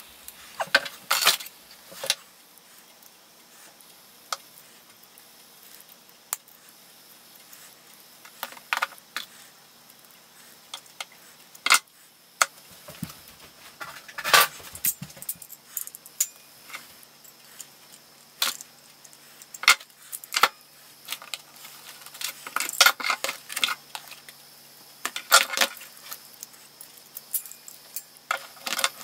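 Irregular clicks, taps and light metallic clinks of small parts and tools being handled on a wooden desk: pliers, wooden dowels and metal clips, with small clusters of knocks scattered throughout.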